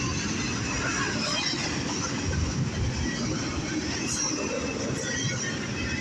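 Freight train cars rolling past at speed: a steady rumble of steel wheels on the rail, with a few faint sharp clicks.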